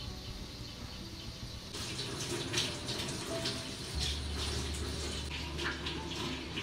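Stovetop cooking: a hissing, crackling noise starts about two seconds in, and a low steady hum joins it about four seconds in.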